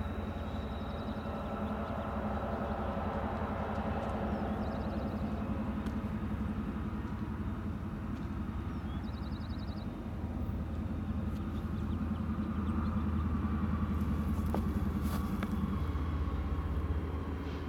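Low, steady rumble of distant diesel freight locomotives approaching along the line, growing louder about two-thirds of the way through. A few short, high chirps sound over it.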